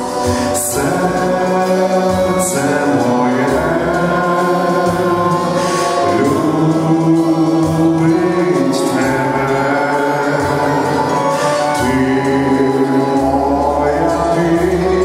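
A man singing a Christian gospel song into a handheld microphone, holding long notes, over a musical accompaniment with a low bass line.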